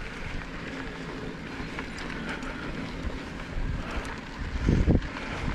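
Wind noise on the camera microphone over the rolling noise of a mountain bike ridden along a dirt trail, with a louder low buffet of wind about five seconds in.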